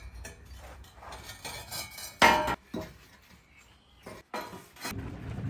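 Hard objects knocked and clinked together while being handled. The loudest is a short ringing clink a little over two seconds in, with a smaller one just after.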